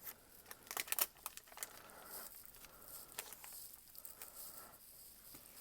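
Scissors cutting open a foil trading-card booster pack, with the wrapper crinkling as it is handled. There is a cluster of sharp snips and crackles about a second in, then softer rustling.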